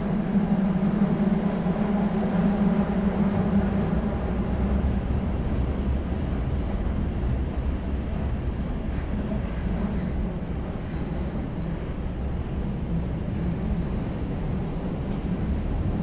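Oslo Metro train heard from inside the car while running on the tracks: a steady low rumble of wheels and running gear, with a humming tone that fades out about four seconds in.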